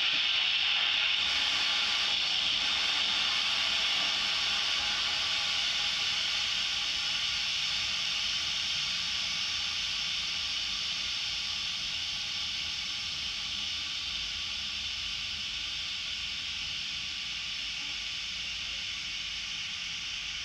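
Steady hiss of a fire-suppression discharge into a test enclosure, slowly fading as the small fires inside go out.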